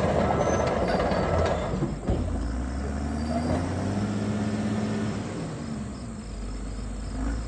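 Cat D5N LGP crawler dozer running: its steel tracks clank and squeal as it backs away for the first couple of seconds. After a knock about two seconds in, the diesel engine runs on at a steady low pitch.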